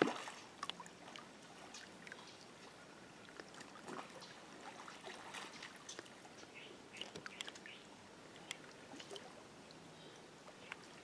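A live bluegill bait splashing once at the water's surface beside a bobber, right at the start, followed by quiet river water sounds with scattered small ticks and faint chirps.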